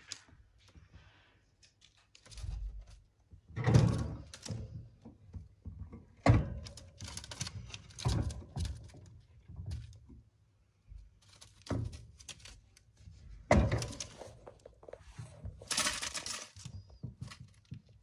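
Irregular knocks, taps and rustling, with a few louder thuds scattered through and no calls or voice.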